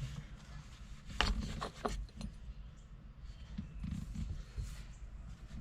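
Faint handling noise from work at the shift rod coupler under the Beetle's tunnel access panel: a few light clicks and knocks over low rumbling.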